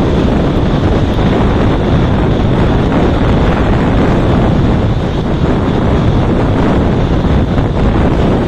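Loud, steady wind buffeting the microphone of a camera carried on a motorcycle at highway speed, an unbroken rush of noise with the road noise of the ride beneath it.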